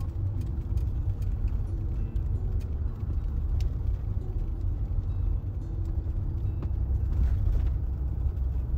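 A car driving along the road, with a steady low rumble of engine and road noise.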